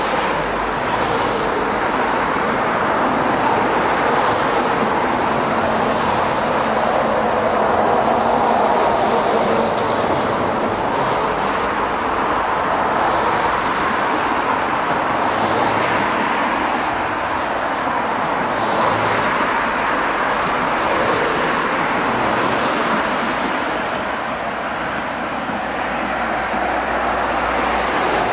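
Steady road noise of a moving car, an even rush of tyre and engine sound with no breaks.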